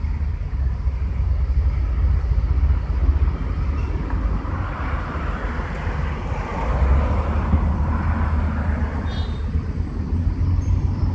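Street traffic noise: a steady low rumble, with a vehicle passing that swells and fades around the middle.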